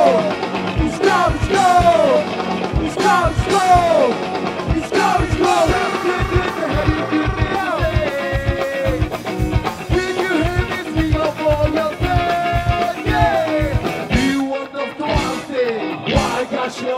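Ska band playing live: a steady drum beat under electric guitars, trumpet and a singer's voice, with repeated falling slides in pitch in the opening seconds. The drums drop out briefly near the end, then the band comes back in.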